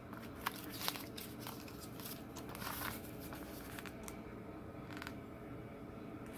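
A paper user-manual booklet being handled and opened: a few short, sharp paper crackles and rustles in the first half, then quieter.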